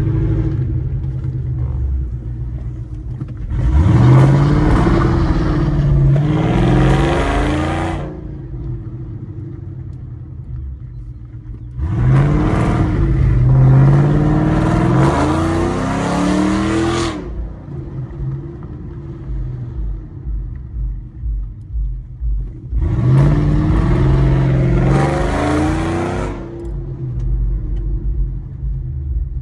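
Ford Mustang GT V8 with long-tube headers, idling and revved up three times. Each time the pitch climbs, holds for a few seconds, then falls back to a lumpy idle.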